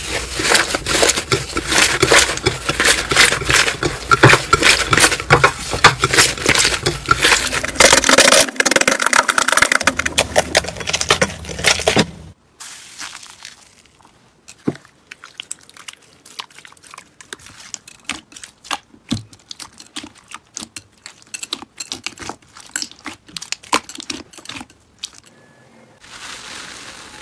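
Slime being squeezed and worked by hand, giving a dense run of small crackling clicks and pops. About twelve seconds in, it cuts to much quieter, sparser clicks and pops.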